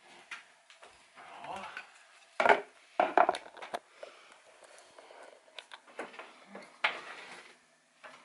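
Handling noise: clatters, knocks and rubbing as things are handled and the camera is picked up and carried. Two loud sharp knocks come about two and a half and three seconds in.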